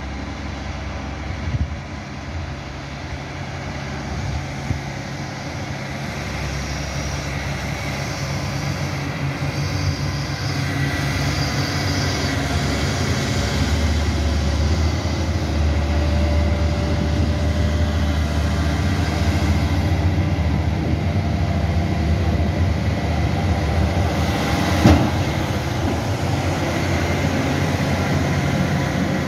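Large John Deere farm tractor's diesel engine running steadily under load on a maize silage clamp, growing gradually louder over the first half as the tractor comes closer, with one sharp knock near the end.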